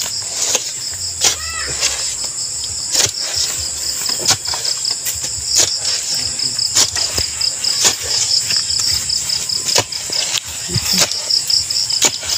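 Crickets trilling steadily in a high, pulsing chorus, with irregular scrapes and knocks about once a second from a digging bar loosening soil along the side of a buried concrete box.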